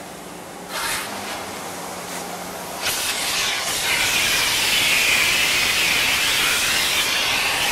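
A car door opens about a second in, and just before three seconds a steady, loud rushing hiss of air sets in: a car-wash vacuum station running.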